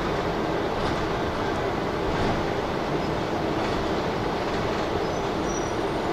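Steady rumble of a city bus heard from inside the cabin as it rolls along the street, with a few faint knocks.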